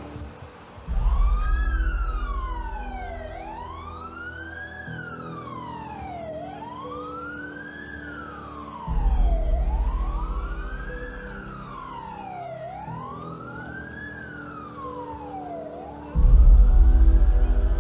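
An emergency vehicle siren in a slow wail, rising and falling about every three seconds, over a steady low drone. Three deep rumbling booms come in: about a second in, around the middle, and near the end.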